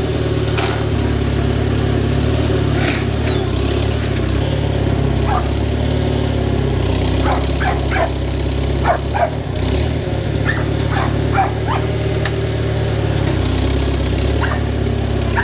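International loader tractor's engine running steadily. From about five seconds in there are several short, high yelps, a few at a time.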